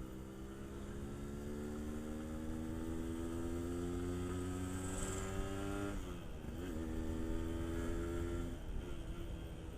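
Yamaha RX King's 135cc two-stroke single-cylinder engine pulling on the move, its pitch rising steadily for about six seconds. The pitch then dips sharply, runs steady and drops again near the end.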